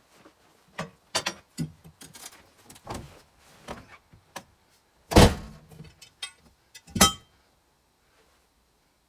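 A series of scattered knocks and clatters, with two loud thuds about five and seven seconds in.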